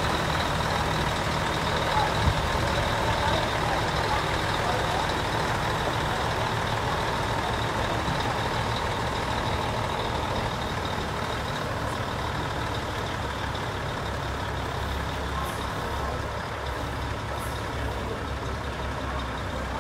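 Heavy diesel truck engines idling in a steady low drone. A thin steady high tone fades out about halfway through, and there is one short knock about two seconds in.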